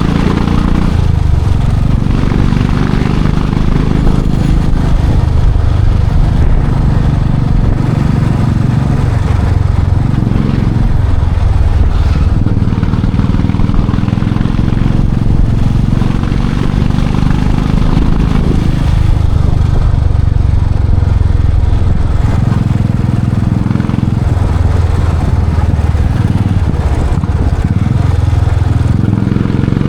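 Royal Enfield Classic 500's single-cylinder engine and exhaust, the motorcycle under way with the revs rising and falling several times.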